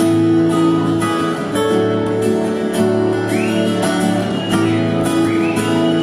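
Electro-acoustic guitar strumming steady chords through the PA as the song's intro. In the second half a high held tone twice slides up, holds and falls away.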